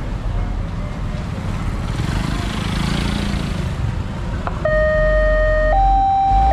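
Road traffic running past, then about three-quarters of the way in a railway level-crossing warning siren starts: two steady electronic tones, E-flat and G, alternating slowly, each held about a second.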